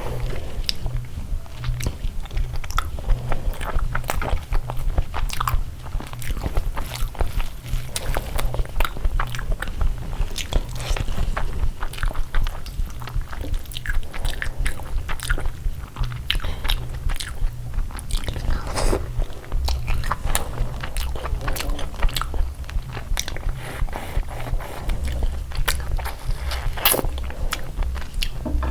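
A person eating: chewing and biting food, with many short crisp clicks and crunches.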